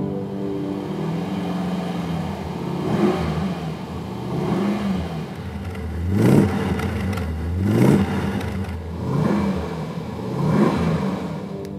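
Alfa Romeo Montreal's 2.6-litre quad-cam V8 revved in about six short blips, each rising and falling in pitch, the two in the middle the loudest.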